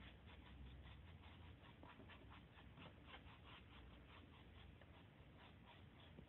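Faint, quick scratchy strokes of a brush working a sand-bearing decorative wall coating over a board, several strokes a second.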